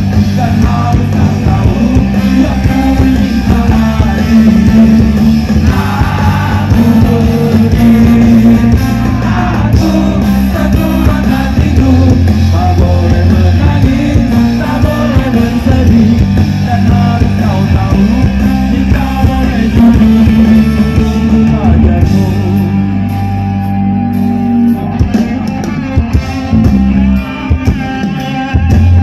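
A live ska band playing loud through a concert PA, with electric guitar and vocals over a full band, heard from within the crowd.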